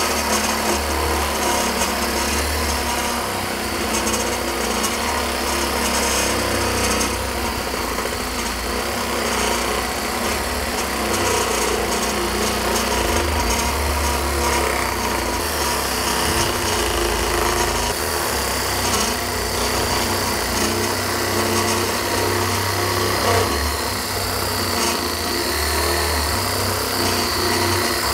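Bosch GSA 10.8 V cordless reciprocating saw cutting steadily through oak, its motor running without a break as the blade saws back and forth. The saw vibrates heavily in the cut.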